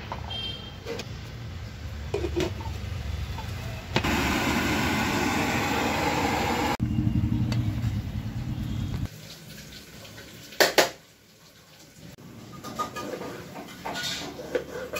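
A pan of mutton in water on a gas burner: a low rumble, then a few seconds of loud hissing and bubbling as it boils that stops abruptly. Later there are a couple of sharp metal clinks, like a steel ladle against the pan, and a few small knocks near the end.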